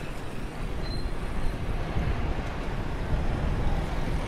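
Engine and road noise of a vehicle driving through town traffic, heard from on board: a steady low rumble with no break.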